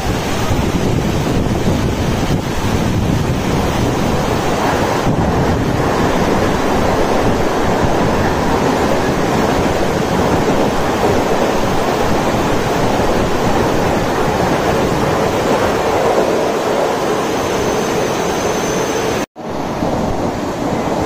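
Steady, loud rushing of wind and rain on the microphone over the running of a Mumbai suburban electric local train passing on the tracks below. The sound cuts out for an instant near the end.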